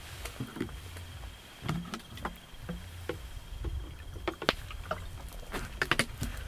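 Eating sounds of someone eating rice and curry by hand from a steel plate: scattered small clicks, smacks and chewing, with a drink taken partway through and a quick cluster of clicks near the end.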